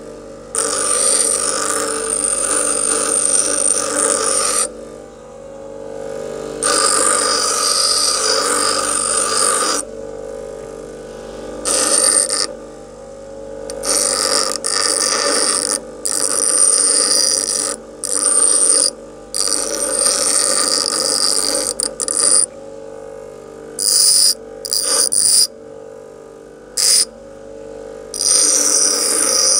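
Bench grinder running with a steady motor hum while a steel file is pressed against the wheel. The grinding rasp cuts in and out in passes of a few seconds, with short breaks between them, as the file's teeth are ground off and its edges chamfered.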